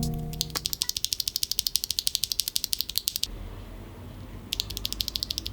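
Rapid, even mechanical clicking, about a dozen sharp clicks a second, in two runs separated by a short pause.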